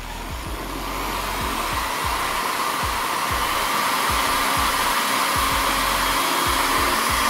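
Corded Bosch hand drill running steadily, its chuck spinning an office-chair caster wheel against a cleaning cloth. The motor noise builds over about the first second, then holds at a steady even whirr.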